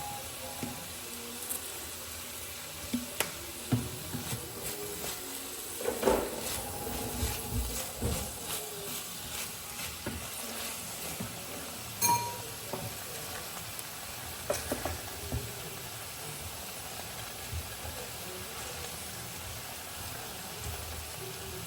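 Food sizzling as it fries in a pan, with a utensil stirring and scattered clinks and knocks against the pan.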